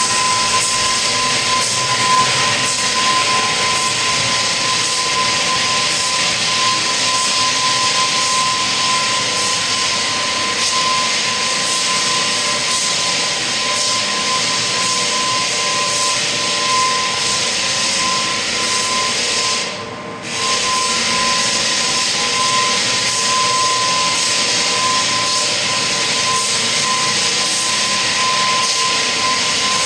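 Floor sanding machine running on parquet: a loud, steady hiss of abrasion with a constant tone running through it. The sound briefly dips about two-thirds of the way through, then resumes.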